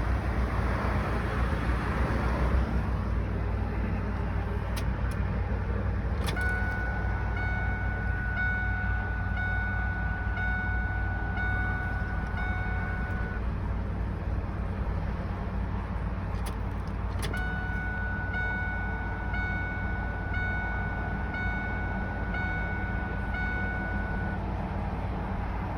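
Twice, a click from the key is followed by the truck's warning chime dinging about once a second for about seven seconds, as the key is cycled to heat the 7.3 Power Stroke diesel's glow plugs before a cold start. A low steady rumble runs underneath.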